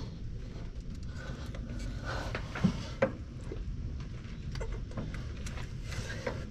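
Steel chisel knocking and scraping against a rusted truck leaf-spring bushing as it is pried apart, with two sharper knocks about two and a half and three seconds in and a few lighter ticks after.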